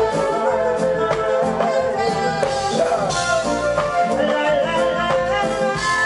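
Live band playing, with a male lead singer singing into a microphone over keyboard, drums and electric guitar.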